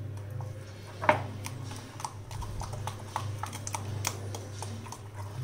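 A spoon stirring thick chocolate cake batter in a ceramic bowl, clicking and tapping irregularly against the sides, with one sharper knock about a second in.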